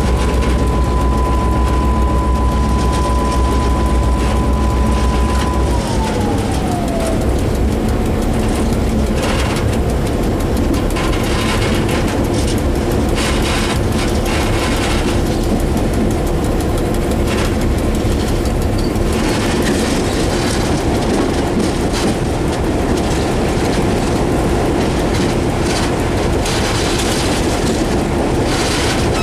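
Diesel locomotive running along the track, heard from its cab: a deep engine rumble with a high steady whine that glides down in pitch about six seconds in as the rumble drops. Wheels click over the rails under a steady running noise.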